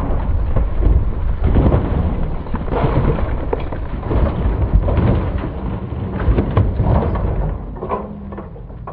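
Harley-Davidson touring motorcycle crashing after a lowside, sliding and tumbling into a dirt embankment: a loud, heavy rumble with many sharp scrapes and crunches of metal and debris, dying down about eight seconds in.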